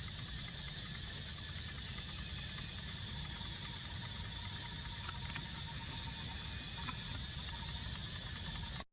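Steady outdoor background noise: a constant high insect drone over a low rumble, with a few faint clicks. It cuts off abruptly at the very end.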